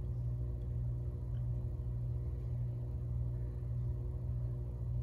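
A steady low hum, as of a motor or electrical appliance running, with nothing else.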